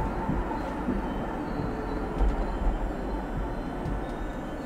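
Oslo tram running along the track, heard from inside the driver's cab: a steady low rumble of the car and its wheels on the rails, with a few faint knocks.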